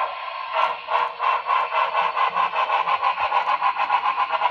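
Model steam locomotive's sound decoder chuffing through its small onboard speaker as the engine accelerates, the chuffs starting about half a second in and quickening to around five a second.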